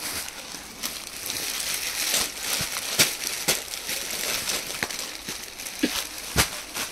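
Plastic garment packaging crinkling and cloth rustling as a folded suit is unwrapped and shaken out, with several sharp snaps.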